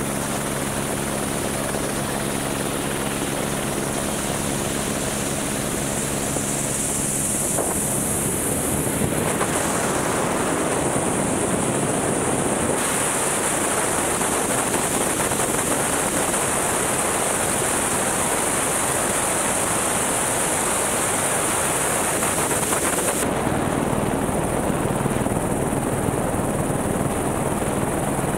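Helicopter running steadily: constant rotor and turbine noise with a high, steady whine. A low even hum of rotor tones gives way to a rougher rushing noise about seven seconds in.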